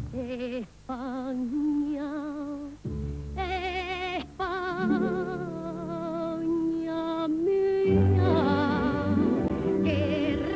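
A woman singing a Spanish copla in full voice with wide vibrato, in short phrases and then a long held note through the middle, over an instrumental accompaniment.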